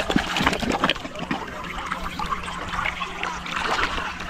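Shallow muddy water sloshing and splashing irregularly as a person kneels and moves in it.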